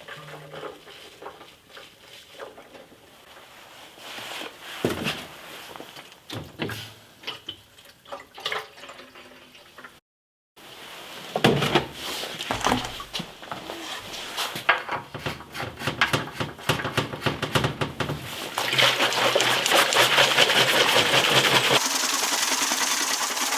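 Water being poured into a steel motorcycle fuel tank for the baking-soda neutralizing rinse: scattered clunks and clicks of handling, then a steady rush of pouring water over the last few seconds.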